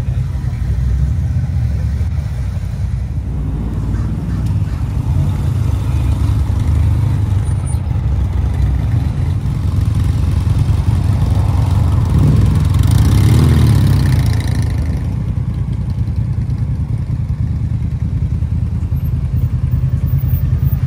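Motorcycle engine running steadily with a deep rumble. A vehicle passes close about two-thirds of the way through, swelling louder and then fading.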